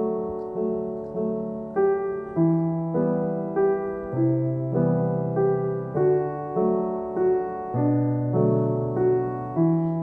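Background music: a slow solo piano piece, single melody notes struck about every half second over held low chords.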